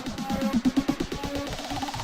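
Background electronic dance music with a fast steady beat and a synth line rising in pitch near the end.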